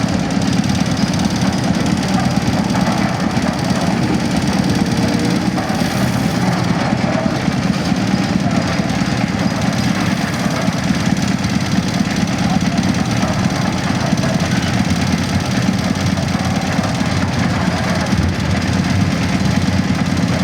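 Engine of a self-loading concrete mixer running steadily, with a dense, even knocking rattle and no change in speed.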